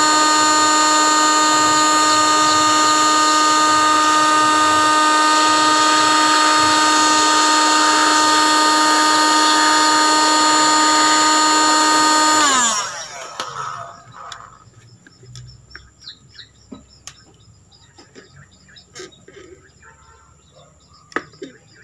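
Electric heat gun running with a steady whine and blower hiss as it heats a motorcycle headlight lens to soften the sealant adhesive. About twelve seconds in it is switched off and the whine slides down and fades as the fan spins down. Then there are light scattered clicks as the lens edge is pried with a thin pick.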